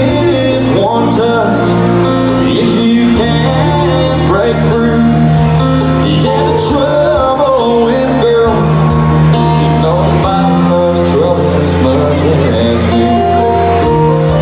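Live country song: a male lead singer with a full band behind him, with sustained bass and chord notes under a wavering vocal line.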